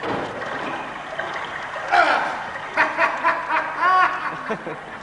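Laughter, a run of short 'ha-ha' pulses starting about two seconds in, after a couple of seconds of rustling noise.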